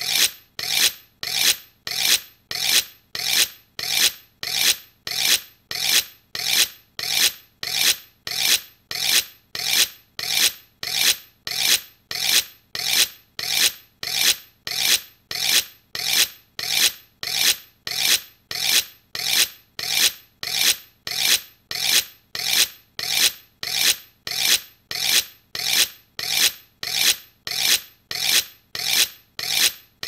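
Two knife blades scraped against each other in repeated strokes, about three every two seconds. Each stroke is a rasping metal-on-metal scrape that starts sharply and fades away.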